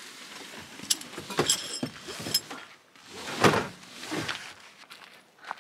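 Knocks and swishes of camping gear being handled, with a brief metallic ring about one and a half seconds in; the loudest swish comes about three and a half seconds in.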